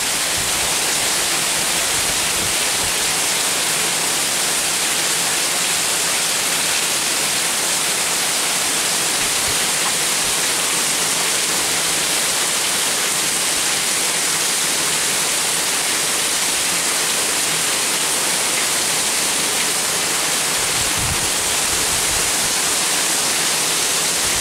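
Heavy tropical-storm downpour: a steady, even hiss of rain that holds unchanged throughout.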